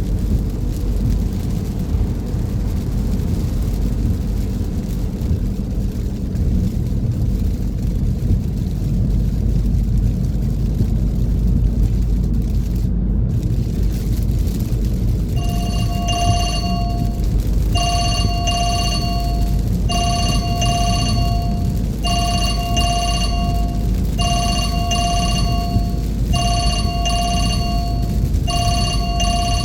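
Steady low road and engine rumble inside a moving car. From about halfway, a telephone ringtone rings in paired rings repeating about every two seconds.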